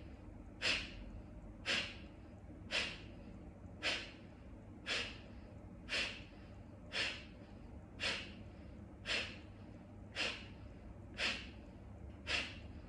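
Kapalabhati breathing: a regular series of sharp, forceful exhales through the nose, driven by the abdominal muscles, about one a second. Each puff starts suddenly and fades quickly, and the passive inhale between puffs is barely heard.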